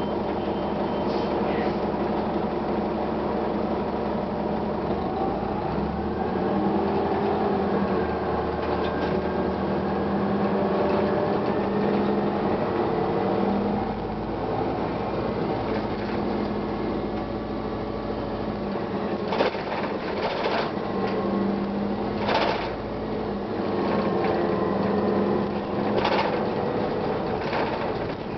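Gillig Phantom transit bus underway, its Detroit Diesel Series 50 inline four-cylinder diesel running with a steady drone whose pitch and load shift several times. A few short, sharp knocks or clatters come in the second half.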